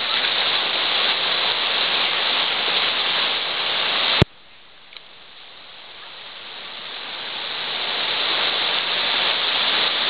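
Steady rush of whitewater from a waterfall and rapids. About four seconds in, a sharp click cuts the sound down suddenly to a much quieter rush, which then swells gradually back to full strength over the next several seconds.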